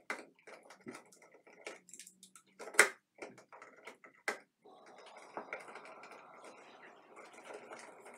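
Utility knife stripping the outer insulation from electrical cable ends: a run of small clicks and scrapes, with a sharper click about three seconds in. A steadier soft scraping follows from about five seconds in.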